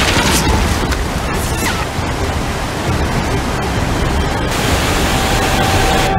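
Loud rushing white water of river rapids and a waterfall, with splashes in the first couple of seconds. A single steady tone comes in near the end.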